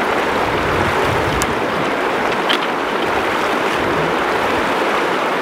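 Shallow river rushing over rocks in a riffle: a loud, steady rush of water, with a couple of faint ticks.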